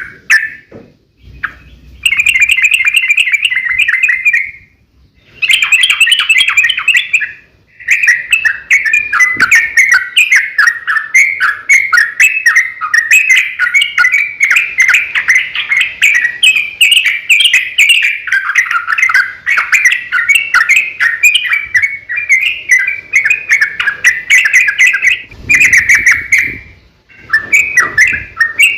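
Yellow-vented bulbul in full song: long, rapid runs of chattering notes. They come in short bursts at first, then run on almost without a break from about eight seconds in. This is the long rolling 'ropel' song of a bird singing hard.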